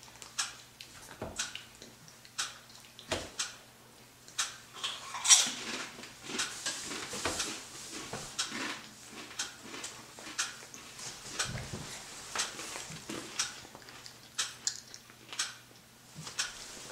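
Irregular light clicks and clinks of eating, dishes, cutlery and a plastic high-chair tray, about one or two a second, with one louder clink about five seconds in. A faint steady electrical hum runs underneath.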